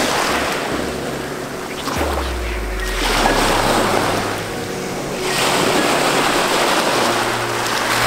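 Small waves breaking and washing up over a pebble beach. The rush of surf swells and ebbs in several surges.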